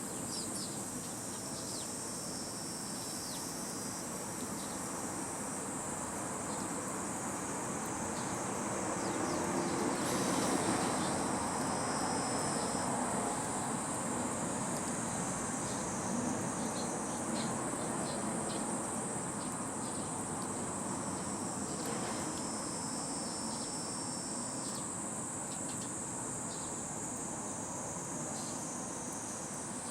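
Insects droning steadily at a high pitch, with a second, lower insect trill coming and going in stretches of a few seconds. A broad low rushing noise underneath swells about ten seconds in.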